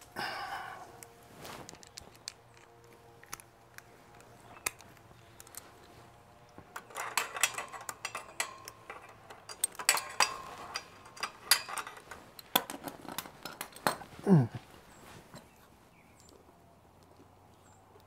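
Metal hand tools and bolts clinking and tapping as they are handled, with a busy run of sharp clinks in the middle and a brief falling tone near the end.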